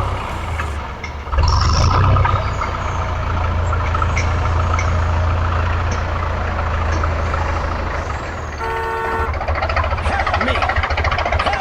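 Tractor engine running steadily with a low hum, with a short horn toot a little under nine seconds in.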